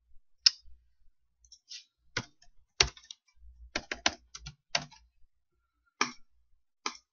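Computer keyboard keystrokes and mouse clicks during spreadsheet work: about a dozen separate sharp clicks at irregular intervals, a few bunched together around the middle.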